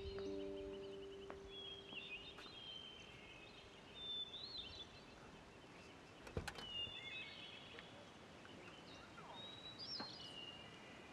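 Birds chirping and twittering on and off, with one sharp click about six seconds in. A held low music chord fades out in the first second or so.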